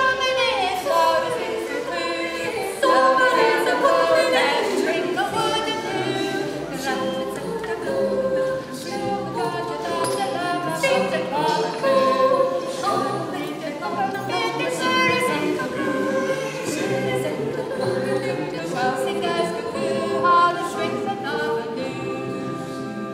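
Small group of voices singing a cappella in several parts at once, in a stone church.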